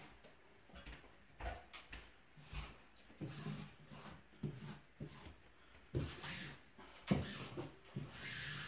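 Quiet, irregular knocks, scrapes and rustles as self-adhesive wallpaper is handled and pressed onto a ceiling by hand.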